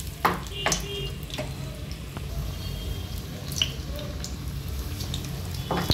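Besan-battered green chillies deep-frying in hot oil in a kadai: a steady sizzling and bubbling, with a few sharp crackles.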